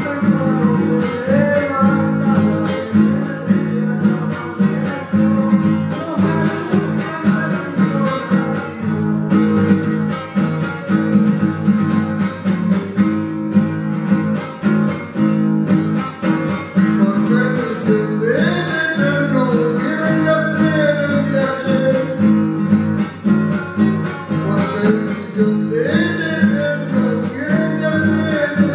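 Canto a lo divino, a Chilean sung religious verse: an acoustic guitar strums a steady repeated accompaniment while a man sings a long, drawn-out melody over it, each line starting high and sliding down.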